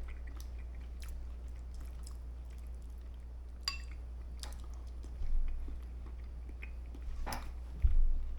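A person chewing a mouthful of riced cauliflower, with soft mouth clicks and a few short louder knocks, the loudest near the end, over a steady low hum.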